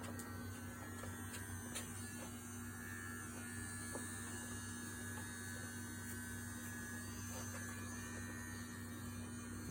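Manscaped Lawn Mower 3.0 electric trimmer running with a steady buzz, with a few faint clicks.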